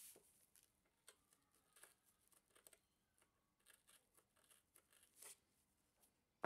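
Faint, irregular snips of scissors cutting through a Scotch-Brite abrasive pad, with light rustling of the pad.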